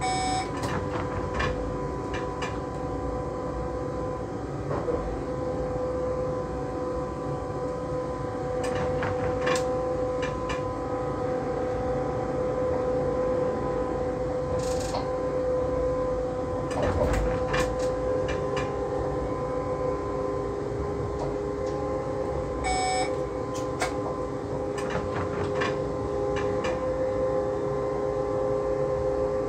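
An electric train running along the track, heard from inside the driver's cab: a steady whine from the drive over a rumble from the wheels and rails, with scattered clicks and knocks. A short electronic beep sounds at the start and again about 23 seconds in.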